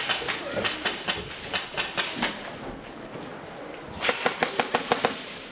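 Airsoft guns firing indoors: scattered sharp shots, then near the end a rapid burst of about ten shots in a second, typical of an electric airsoft rifle on full auto.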